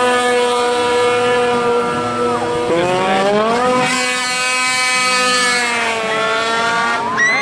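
Off-road vehicle engine revving hard at high rpm. It holds a steady high pitch, dips briefly and climbs back about halfway in, then eases off near the end.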